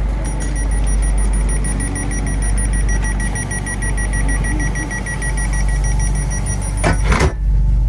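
Train door-closing warning: a rapid high-pitched beeping that runs for about six and a half seconds, then the sliding doors thud shut. A steady low hum from the train runs underneath.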